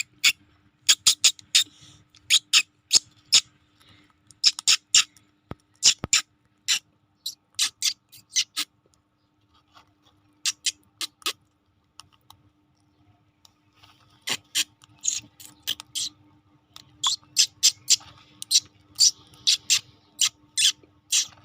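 Parrots pecking at rice: sharp beak clicks in quick irregular runs of several a second, broken by pauses of a second or two.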